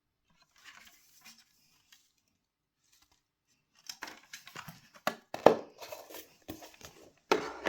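Clicks, knocks and rustling from a robot vacuum's removed plastic dust bin being handled. There are a few faint rustles at first, then a busier run of sharp clicks and knocks from about four seconds in, loudest near the end.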